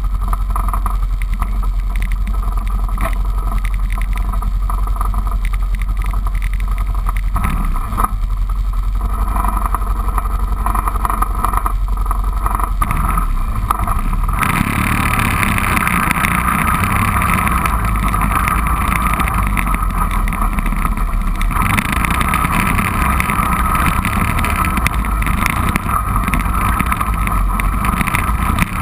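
Four-wheeler (ATV) engine idling steadily close to the mic. About halfway through it changes suddenly to the quad being ridden along a dirt trail, with engine, wind and ride noise all louder and fuller.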